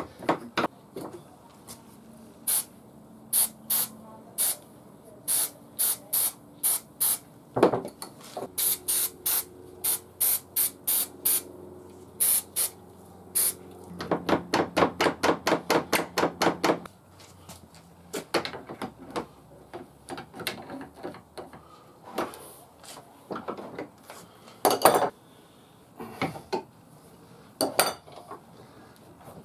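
Aerosol can of contact spray adhesive hissing in many short spurts, often several a second. A few sharper knocks come near the end.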